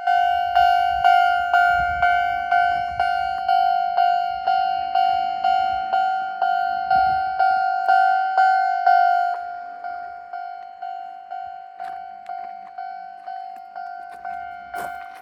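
Japanese railway level-crossing warning bell ringing in a steady rhythm of about two strikes a second. It drops noticeably in loudness about nine seconds in and keeps ringing.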